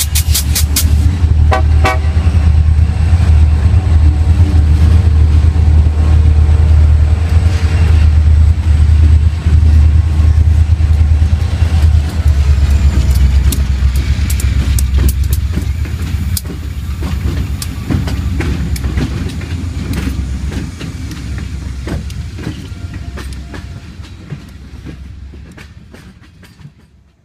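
Wheeling & Lake Erie freight train passing close by: a string of diesel-electric locomotives runs with a deep, loud engine rumble and the clack of wheels over the rails. The rumble eases after about twelve seconds as tank cars roll past, and the sound fades away near the end.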